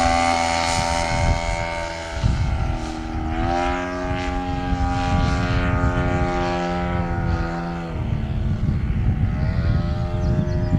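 The 100cc petrol engine and propeller of a giant-scale Yak 55M RC aerobatic plane flying overhead, a steady buzzing drone. The throttle eases off about two seconds in, opens back up a second and a half later, eases off again near eight seconds and rises once more near the end.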